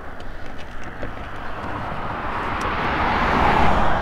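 A car driving past on the road, its tyre and engine noise swelling steadily to a peak near the end.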